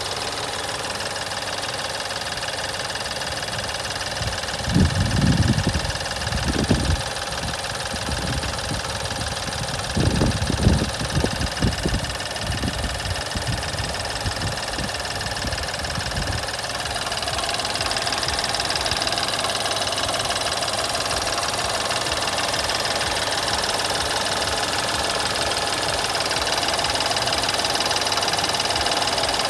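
BMW 528i Touring engine idling with a diesel-like rattle, the abnormal engine noise its owner hears at start-up. A few low thuds come around five and ten seconds in, and the running grows a little louder and brighter about halfway through.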